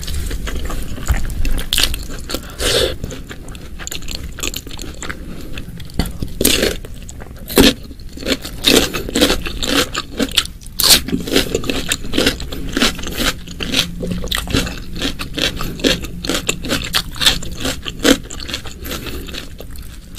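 Close-miked eating: irregular chewing and crunching with wet mouth clicks and some scraping, busier in the second half.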